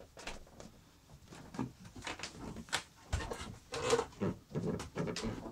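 Irregular footsteps and knocks on wooden stairs and flooring in a small wood-panelled space, several in quick succession.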